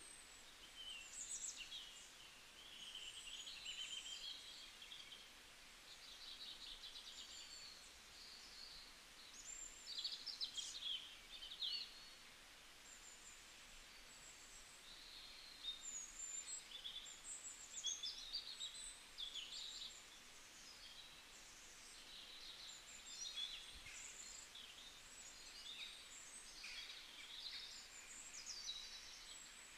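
Faint birds chirping and twittering, with many short rising and falling calls over a low hiss.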